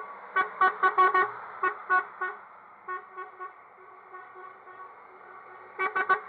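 Truck horns honking: a rapid run of about eight short toots in the first two and a half seconds, a few fainter ones after, and another quick burst of three near the end.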